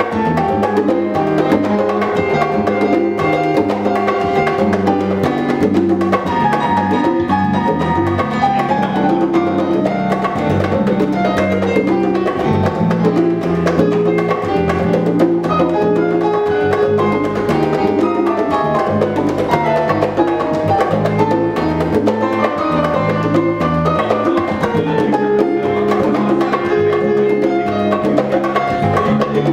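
Live Latin band playing salsa: congas and bongos with piano, over a steady bass line and drum kit.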